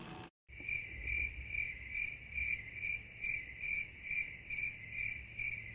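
Cricket-chirping sound effect, a steady chirp repeating about twice a second that cuts in abruptly after a moment of dead silence: the comedic 'crickets' gag marking an awkward pause.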